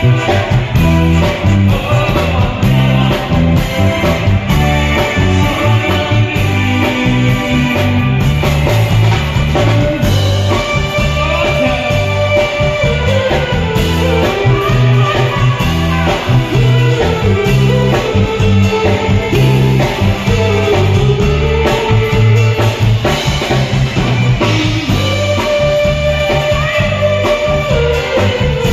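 Live band playing loudly through PA loudspeakers: a drum kit and bass guitar keep a steady beat under guitar and a singer's voice.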